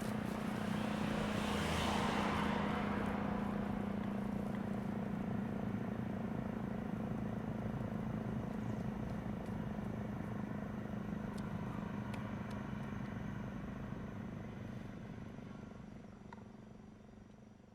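Federal Signal Eclipse 8 siren coasting down at the end of its attack-signal test: a low steady tone that slowly fades away over the last few seconds. A rushing noise swells and dies away about two seconds in.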